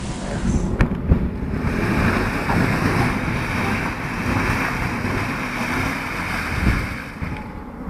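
Chevrolet Tahoe's engine running under load as its wheels spin in snow and mud, with a heavy, gusty wind rumble on the microphone.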